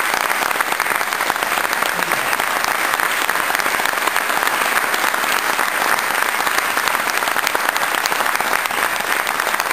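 Crowd applauding, many hands clapping at a steady level.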